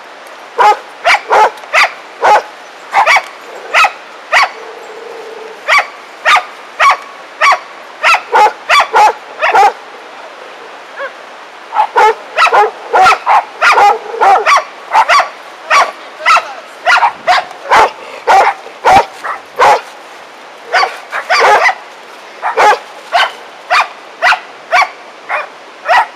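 A dog barking over and over in short, sharp barks, about one or two a second, with a brief lull about ten seconds in.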